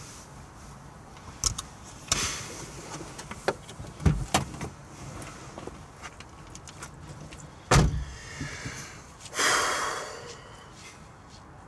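A car's passenger door being opened and shut as someone climbs out: latch clicks and knocks, clothing rustling against the seat, then the door closing with a heavy thump about eight seconds in, the loudest sound, followed by a rustling swell.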